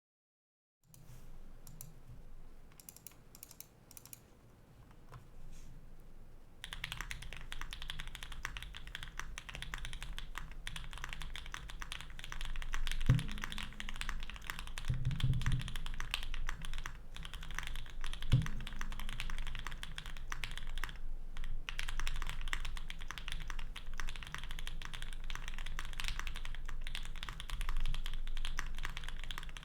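Typing on a custom Polaris mechanical keyboard with lubed and filmed Banana Split linear switches on an FR4 plate, under GMK Space Cadet keycaps. It starts with a few scattered keystrokes, then becomes fast, continuous typing about a quarter of the way in, with a few louder, deeper key strikes around the middle.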